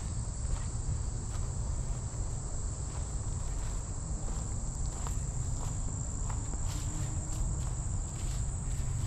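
Insects in dense summer vegetation shrilling in one steady, high-pitched drone, over a low rumble and a few soft footsteps through grass.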